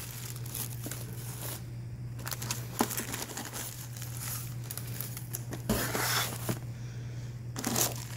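Tissue paper crinkling and rustling as wrapped packages are handled and lifted out of a cardboard box, with a louder stretch of crinkling about six seconds in and again near the end.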